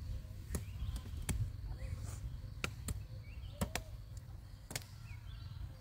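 Sharp chopping knocks, about six at uneven intervals, with faint short chirps between them.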